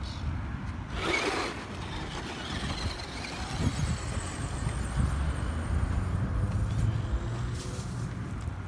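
Radio-controlled off-road truck driving over dirt: a steady low rumble with a faint high motor whine, and a brief scuffing burst about a second in.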